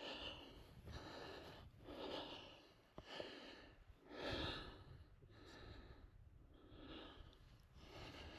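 A person breathing heavily close to the microphone, one breath about every second, with a single faint click about three seconds in.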